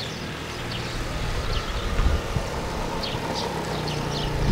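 Small 50cc four-stroke scooter engine (139QMB) running as the scooter rides toward the microphone, getting steadily louder. Short high chirps sound here and there over it.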